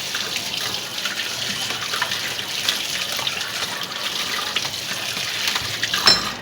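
Kitchen tap running into a sink while raw chicken is rinsed under it, the water spattering with small splashes. A knock near the end, and then the running water stops.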